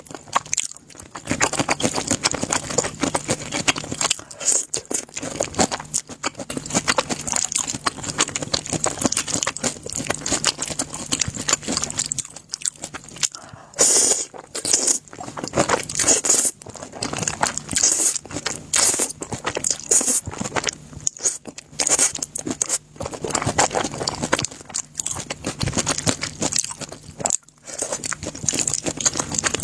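Close-miked eating: black-sauce fried noodles slurped and chewed wetly, with crunchy bites of kimchi and shrimp in a quick run of clicks and smacks. The run is busiest about halfway through.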